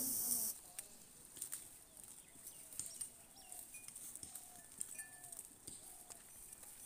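Herd of goats grazing among rocks: faint scattered clicks and knocks of hooves and grazing, with a few short faint calls. A loud steady hiss at the start cuts off suddenly about half a second in.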